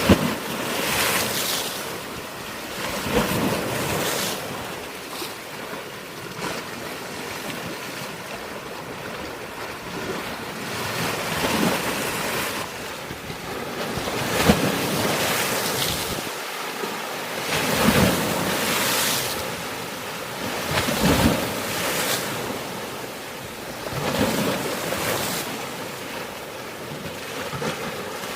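Sea waves breaking on a rocky shore, each wave a rushing swell of surf noise every few seconds, with wind on the microphone.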